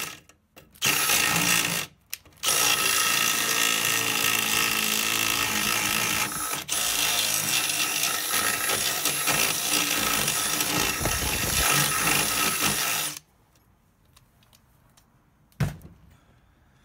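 Power drill boring through the metal deck of a Xiaomi M365 electric scooter, enlarging the hole for a wiring grommet. It runs in two short bursts, then steadily for about ten seconds with a high motor whine, and stops about 13 seconds in. A single knock follows near the end.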